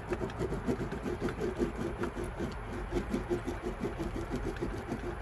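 A skateboard wheel on a hand-held truck rolled back and forth over freshly laid clear griptape to press out air bubbles: a rough, gritty rolling rumble that pulses several times a second.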